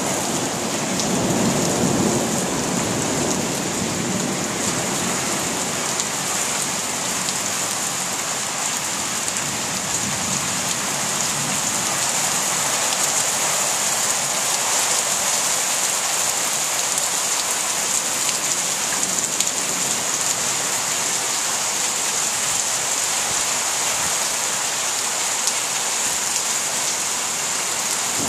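Rain pouring steadily in a thunderstorm, a constant hiss, with a low rumble of thunder dying away over the first few seconds.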